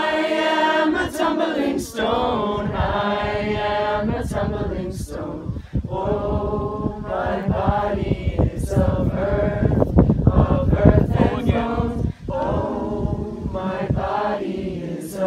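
A group of voices singing or chanting together without instruments, in long held notes that shift in pitch.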